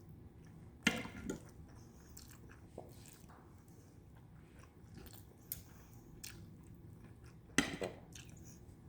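A person chewing food close to the microphone, with a few sharp clicks about a second in and again near the end.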